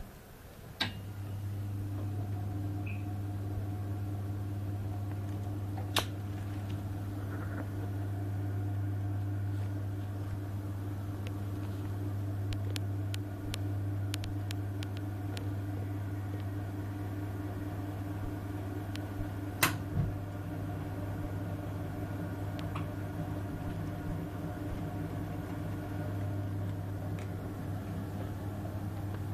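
Potterton Netaheat 16-22 gas boiler coming on with a click about a second in, then running with a steady low hum. A few sharp clicks and faint ticks sound over the hum.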